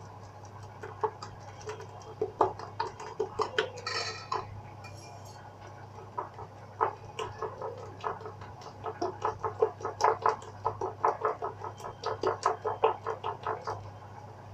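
Silicone spatula beating thick gram-flour dhokla batter in a glass bowl: quick, irregular taps and slaps of the spatula against the bowl, picking up into a faster run of strokes in the second half as the batter is beaten smooth.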